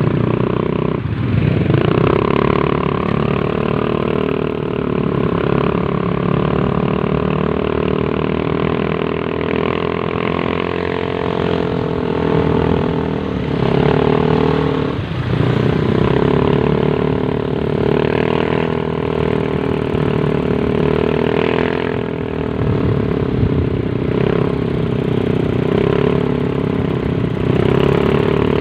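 Motorcycle engines running while riding along in slow traffic. The engine note dips and climbs again as the throttle is eased and reopened, about a second in and again about fifteen seconds in.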